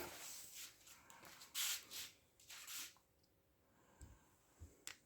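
A few faint rasping strokes of a knife blade across a 400-grit diamond sharpening stone in the first three seconds, then two small clicks near the end.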